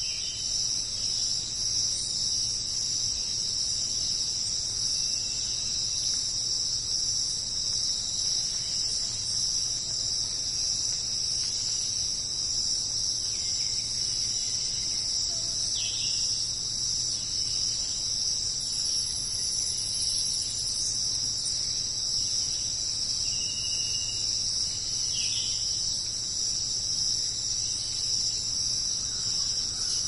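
Steady, high-pitched chorus of insects, a continuous shrill drone that holds unchanged throughout.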